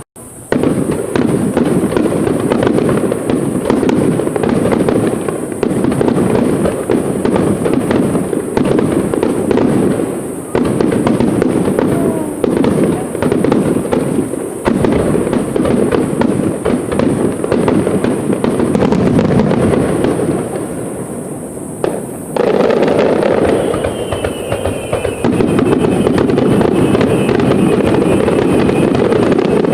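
Aerial fireworks display going off in a dense, continuous barrage: many shells bursting and crackling in quick succession, with a brief lull a little past the middle.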